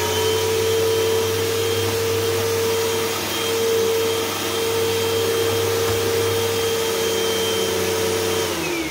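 Bagless upright vacuum cleaner running with its brush roll set to carpet-height position 4, spinning with little to no contact with the carpet. The motor spins up at the start, runs with a steady whine, and winds down with falling pitch near the end.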